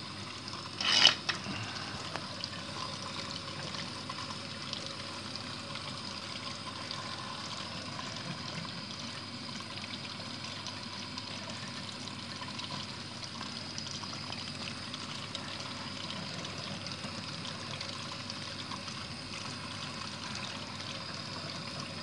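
Defy dishwasher running a wash cycle: a steady swish of water spraying and splashing inside the tub. There is one brief sharp knock about a second in.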